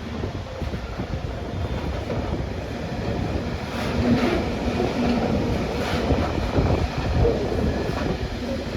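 A train running past on the line, a steady rumble of wheels on rail with a few faint knocks.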